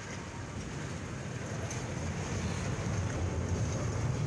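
Low rumble of passing road traffic, swelling toward the end.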